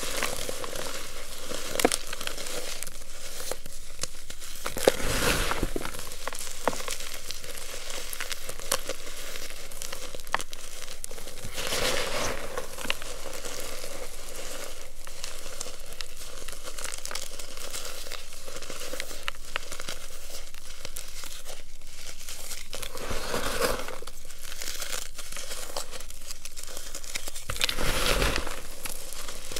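Hands crushing and squeezing crumbled reformed chalk (a baking soda, cornstarch and gym chalk mix) in a bowl: continuous dry crunching and crumbling of the powdery clumps, with several louder squeezes.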